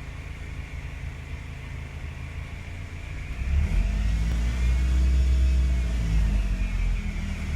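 2005 Lotus Elise's four-cylinder engine idling, then revved about three and a half seconds in, its pitch rising and easing back down over the next few seconds. A faint high whine rises and falls with the revs.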